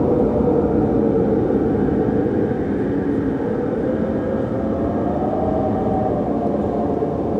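Deep, steady droning rumble from the performance's sound score, with a faint tone rising and falling about halfway through.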